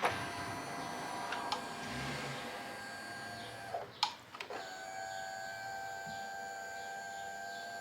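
Indian Challenger's electric windshield motor running as the windshield moves. It gives a steady whine for almost four seconds, stops with a click, then whines again for nearly four more seconds.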